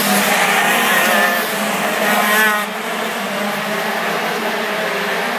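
Racing kart engines running at speed on a race track, their pitch wavering up and down; the sound drops a little in loudness about halfway through.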